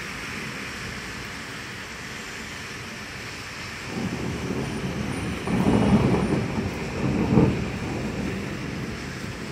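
Steady hiss of rain, then about four seconds in a rolling rumble of thunder builds up, swells twice and fades away near the end.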